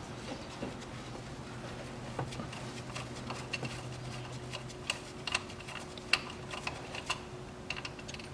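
Scattered light metallic clicks and taps of hand tools and a loosened oil-feed fitting being worked on a turbodiesel engine, over a faint steady hum.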